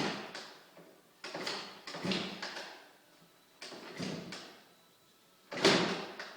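Suzuki RM250 two-stroke engine being kick-started: about five separate kicks, each a short swoosh of the engine turning over, with pauses between them. The freshly rebuilt engine does not fire yet.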